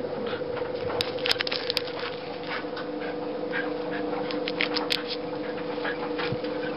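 A wire-haired fox terrier pawing and digging in snow, making a run of short scraping, crunching sounds over a steady low hum.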